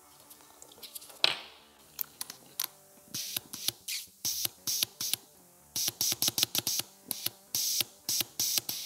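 Solenoid valves on a BMW air suspension compressor's valve block clicking again and again as 12–13 V from a bench power supply is switched to them, testing that they open. The clicks come short, sharp and irregular, thickening into quick runs from about three seconds in.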